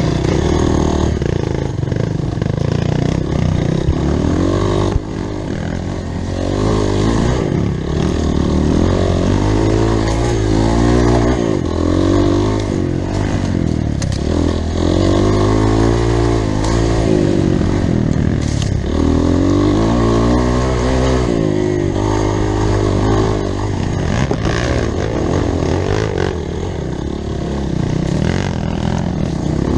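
Trail motorcycle engine revving up and down repeatedly while being ridden, its pitch rising and falling every second or two over a steady low rumble.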